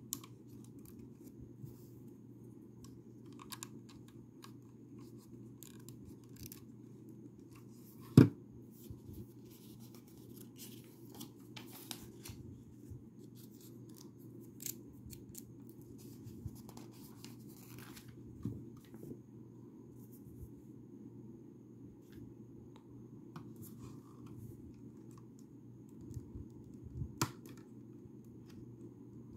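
Lego bricks being handled and pressed together: scattered small plastic clicks and scratchy rustling, with one sharp knock about eight seconds in, the loudest sound, and a few more clicks near the end.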